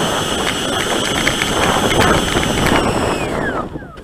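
RC plane's motor running at a steady high whine over a rushing of air, then throttled back near the end, its pitch falling as it winds down.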